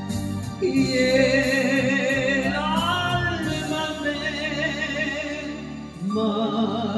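A woman singing a long held note with vibrato into a microphone, amplified through a speaker over a recorded ballad backing track. The note comes in just under a second in and climbs around the middle, and a new sung phrase starts near the end.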